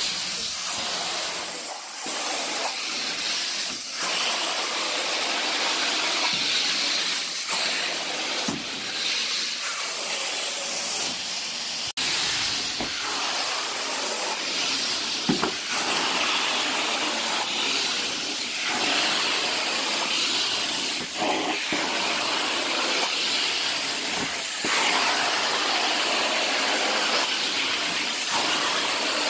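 Carpet-cleaning extraction wand pulled across carpet, its suction giving a steady, loud rushing hiss of air and water.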